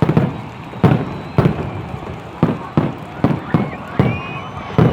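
Fireworks going off in quick succession: about ten sharp bangs, roughly two a second at uneven intervals, each trailing off briefly.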